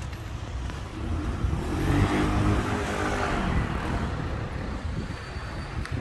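A motor vehicle driving past close by on the street, its engine and tyre noise swelling to a peak about two to three seconds in and then fading, the engine pitch dropping as it goes away, over steady street traffic noise.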